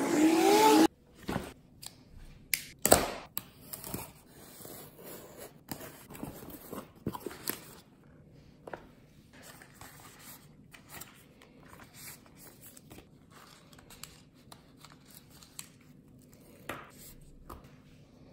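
A small cardboard box and plastic packaging being opened and handled by hand: scattered clicks, rustling, crinkling and tearing, with a sharper snap about three seconds in. It starts with about a second of louder outdoor noise that cuts off abruptly.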